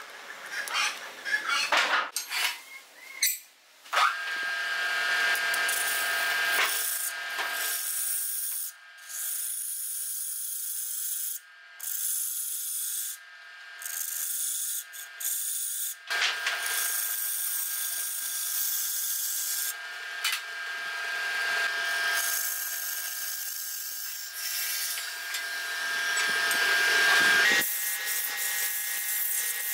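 Clicks and knocks as a lathe chuck is tightened with its key, then a wood lathe running with a steady whine while a hand-held turning tool cuts a thin spinning wooden disc, with a hiss of cutting and short breaks. Near the end the whine rises a little in pitch as the disc is sanded by hand.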